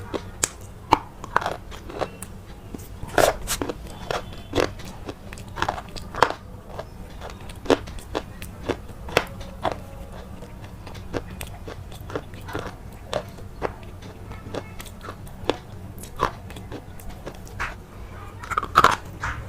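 Crisp food being bitten and chewed: a run of sharp, irregular crunches, several a second, with some louder cracks.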